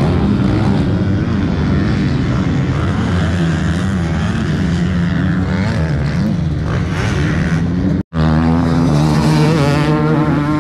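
Motocross bikes' engines running and revving around the track, the pitch rising and falling as the riders work the throttle. The sound drops out for an instant about eight seconds in, then returns with a stronger, more clearly pitched engine note.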